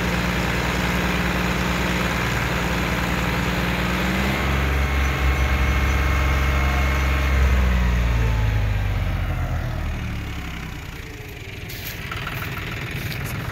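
John Deere 4x2 tractor's diesel engine running at high revs and working hard, louder and deeper from about four seconds in. Near the ten-second mark the engine note falls and dies down to a quieter, low idle.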